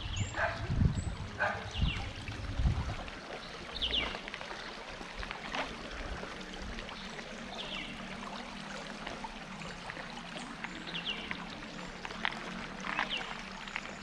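Stream water flowing with a steady rush, with a few short animal calls now and then. A low rumble sits under it for the first three seconds.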